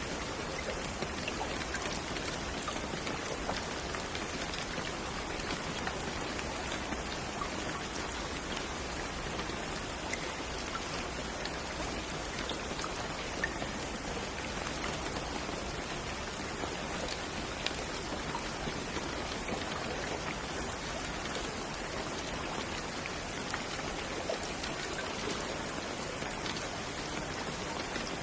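Steady rain falling, a dense even hiss with many small drop ticks.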